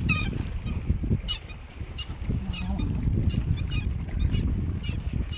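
A bird calling repeatedly, short high calls about one or two a second, over a steady low rumble.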